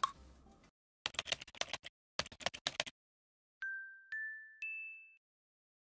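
Added editing sound effects over a title card: two quick runs of typing-like clicks, then three chime dings about half a second apart, each higher in pitch than the last.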